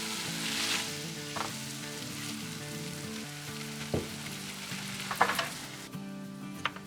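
Breaded potatoes sizzling as they fry in hot vegetable oil, with a few sharp clicks of a utensil against the pan. The sizzle drops away near the end.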